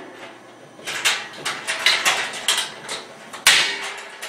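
Metal parts of a ProQ Amigo smoker clanking and knocking as a stacker section is lifted off and set down: a run of quick clatters, then one loud knock about three and a half seconds in.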